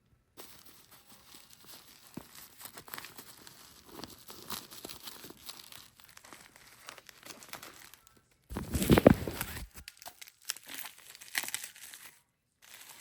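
Packaging crinkling and rustling as a fragrance bottle is unwrapped by hand, with a louder burst of crinkling about nine seconds in.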